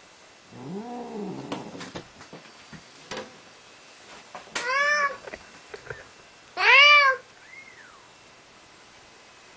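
Adult cat meowing: a low, drawn-out call about half a second in, then two higher meows around five and seven seconds, the second the loudest, and a faint short one just after. A few small ticks fall between the first two calls.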